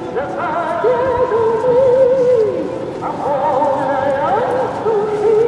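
Singing voices holding long notes with a wide vibrato, at times two pitches at once, each phrase sliding down at its end.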